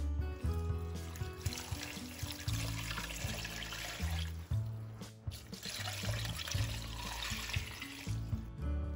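Water poured from a glass measuring cup into a pot of chopped kimchi, splashing in twice for a few seconds each with a short break between, over background music.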